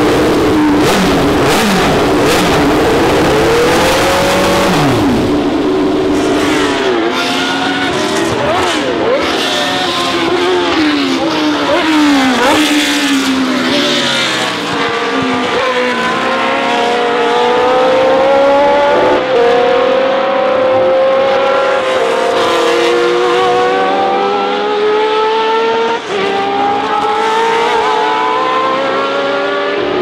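Cosworth DFV V8 of a Lotus 77 Formula One car running, briefly revved in the first few seconds, then at speed, its pitch climbing again and again as it accelerates through the gears with a drop at each upshift.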